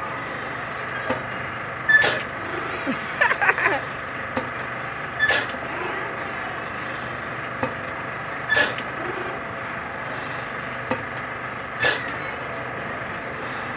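Carnival pendulum swing ride running: a steady machinery hum, with a short sharp burst carrying a brief squeal about every three seconds as the gondola swings back and forth.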